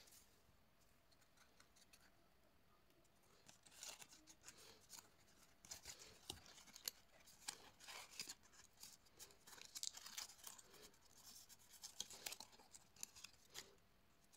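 Cardstock being handled, folded and creased by hand: faint, short crackles and rustles of stiff paper, coming thick and irregular from about four seconds in.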